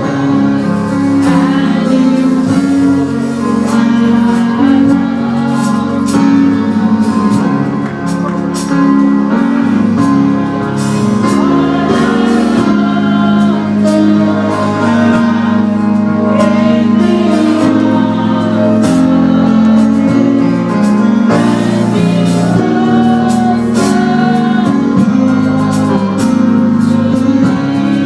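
Gospel music with singing over held chords and a steady beat of percussion hits.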